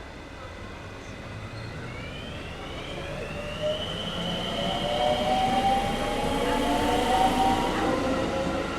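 JR West 223-series electric train pulling away and accelerating, its VVVF inverter-driven traction motors whining in tones that rise steadily in pitch from about two seconds in. Wheel and rail rumble grows louder throughout.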